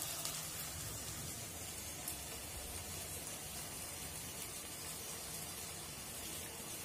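Tomato and green chilli masala sizzling faintly and steadily in a stainless steel pan on a gas stove.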